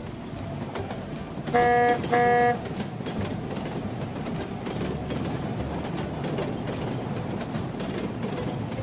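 Train horn sounding two short toots, then the steady rumble of a train rolling past over the tracks.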